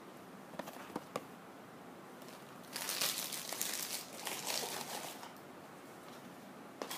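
Hands handling a small toy blind box and its packaging: a few light taps about a second in, then rustling and crinkling for about two seconds.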